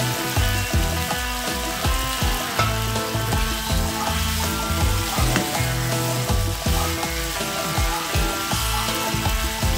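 Chicken livers frying and sizzling in a hot wok as they are stirred with a spatula, with background music and its bass line running underneath.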